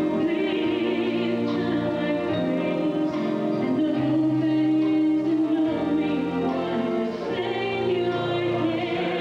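A female soloist singing long, held notes into a handheld microphone over musical accompaniment.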